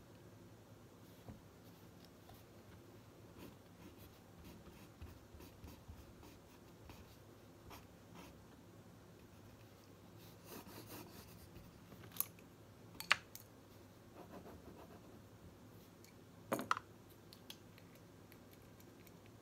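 Pen writing on notebook paper: faint, soft scratching strokes. A few short sharp clicks or taps come in the second half, the loudest about three-quarters of the way through.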